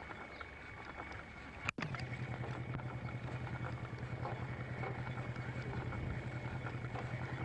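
Noise of an old news-film soundtrack with no live sound: crackle and hiss under a faint thin whistle, then a sharp click with a brief dropout, as at a splice, after which a steady low hum with a fast flutter sets in.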